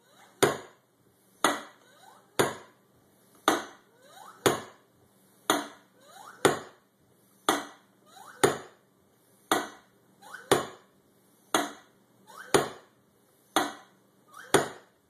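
High-pressure PCP hand pump being stroked steadily, a sharp clack about once a second with a faint rising squeak between clacks, as it charges a Crosman PowerMax Hi-pac air reservoir through its fill hose.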